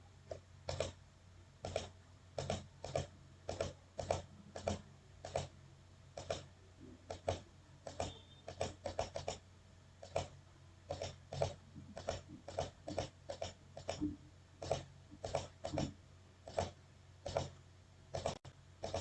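Computer mouse button clicked rapidly and irregularly, about two sharp clicks a second, some in quick pairs, while targets are hit in a timed mouse-accuracy test. A faint steady low hum runs underneath.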